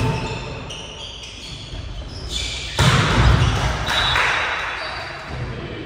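Volleyball rally in a large echoing sports hall: the ball being struck, with a sudden loud hit about three seconds in followed by a short stretch of noisy commotion.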